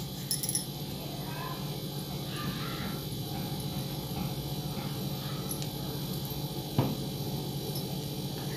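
Small clicks of a metal keychain ring being handled and fitted onto a plastic-wire keychain, the sharpest about seven seconds in, over a steady low hum.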